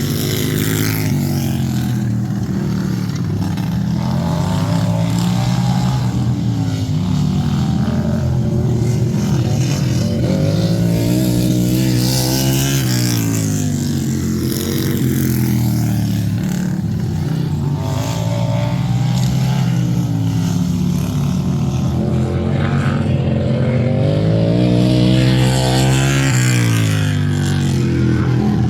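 Racing lawn tractor engine running hard, its pitch climbing and dropping again every few seconds as it accelerates and backs off around the track.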